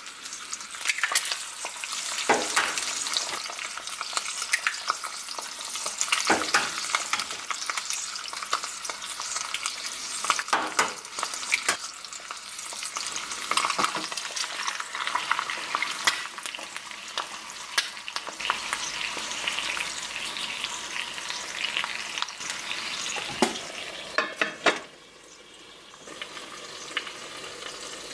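Thick-cut bacon and eggs sizzling in a frying pan, with sharp cracks and taps every few seconds as more eggs are cracked and dropped in. About 25 seconds in a lid clatters onto the pan and the sizzle turns quieter and muffled.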